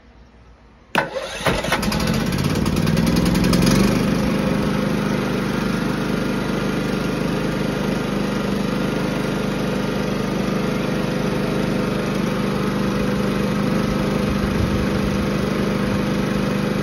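Firman W3650iE inverter generator started on its electric starter: a brief crank about a second in, then the engine catches, rises in speed for a couple of seconds and settles into steady running without the choke, now that its partially clogged main jet and emulsion tube have been cleaned.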